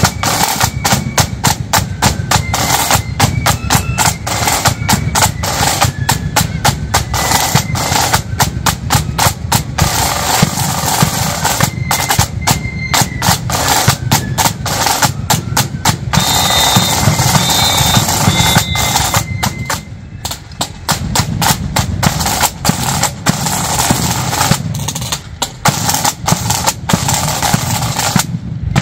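Marching band snare and bass drums playing a fast, dense beat with rolls, with a few faint high notes above it. The drumming thins out briefly a few times in the second half.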